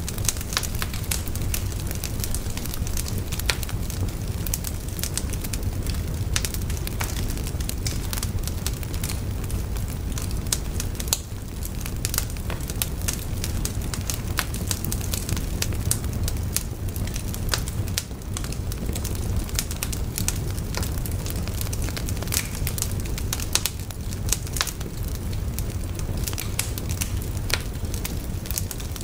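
Wood fire burning: a steady low rush of flames with frequent sharp crackles and pops throughout.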